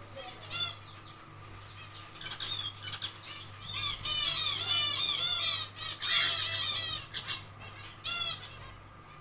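Zebra finches calling and chattering: short bursts of repeated nasal calls, then a dense run of calls in the middle.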